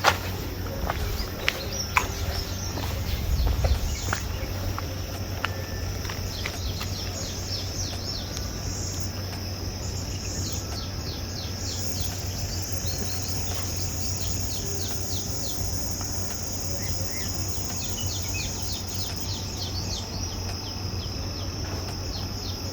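Insects, crickets among them, chirping and trilling steadily in a high, even drone, with runs of quick ticking chirps and occasional bird calls. A few sharp clicks sound in the first few seconds.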